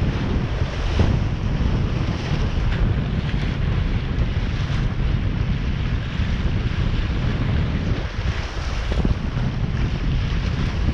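Wind buffeting the microphone in a steady, rumbling rush, over a constant wash of water noise.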